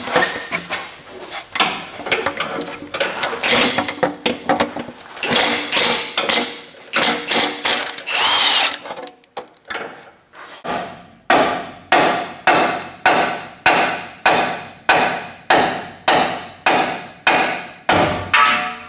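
A Milwaukee Fuel cordless impact wrench hammers in dense, irregular bursts on a Dodge Ram's torque converter bolts, with brief high squeals. From about eleven seconds in come steady, ringing hammer blows on metal, about two a second, called deafening.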